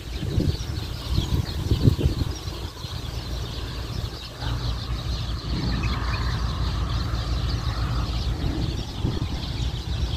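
Strong sandstorm wind buffeting the microphone with a low rumble, gusting hardest in the first two seconds, over a steady hiss of wind through date palm fronds.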